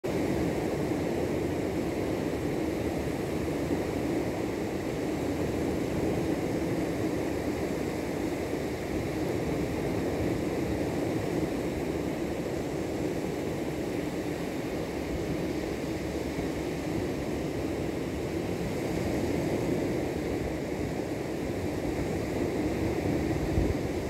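Steady wind buffeting the microphone over the continuous wash of surf breaking on a sandy beach.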